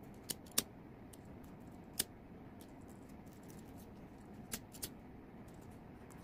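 Faint handling sounds of satin ribbon being folded by hand: a few short, sharp clicks and ticks, the clearest about half a second and two seconds in, over a quiet background.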